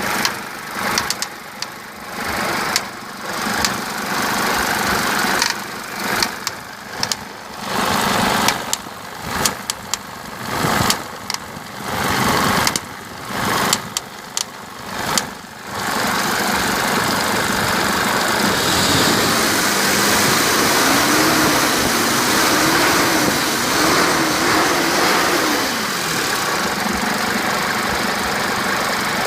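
Mercedes 190D 2.5 five-cylinder diesel engine running with a ticking, clunking noise of unknown cause; the owner reports it fades when revved or fully warm. The sound cuts in and out repeatedly for the first half, then runs steadily.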